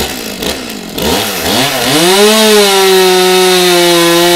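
Two-stroke chainsaw revved in a few quick blips, then held at full throttle from about two seconds in, its pitch easing down slightly. It cuts off abruptly at the end.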